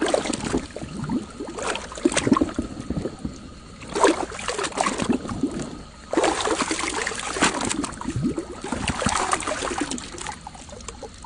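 Toy vehicles being washed by hand in water: irregular splashing and sloshing in bursts.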